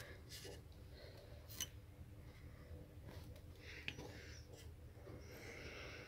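Faint rustling and scratching of cloth as a cat paws and bats at a string toy on a blanket, with a few soft clicks.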